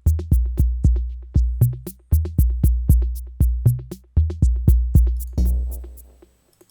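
Arturia DrumBrute analog drum machine playing a beat: deep, long-ringing kick drums under quick, sharp percussion ticks. The pattern stops about five and a half seconds in, and the last kick rings out.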